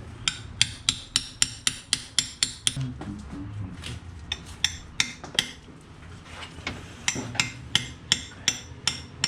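Hammer blows at about three a second, in three runs with short pauses between them. This is a hammer driving a tool into a pilot bearing bore packed with soaked paper towels: the hydraulic method of forcing out an old clutch pilot bearing.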